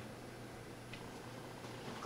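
Quiet steady room noise with a low hum, and one faint click about a second in.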